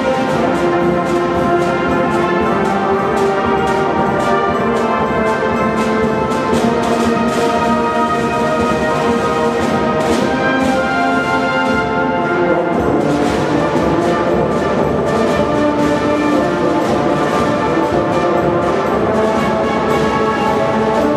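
Youth marching band playing: brass instruments holding a melody over snare drums and bass drum beating steadily.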